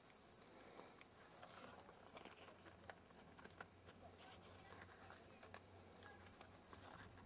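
Near silence: faint outdoor room tone with scattered soft ticks and a faint low hum in the middle.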